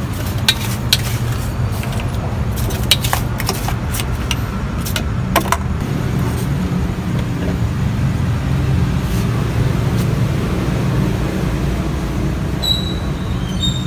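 Steady low rumble of road traffic, with sharp metallic clicks and taps in the first half from ice, a steel bowl and a knife as avocado is scooped into a steel cup. A brief high squeak comes near the end.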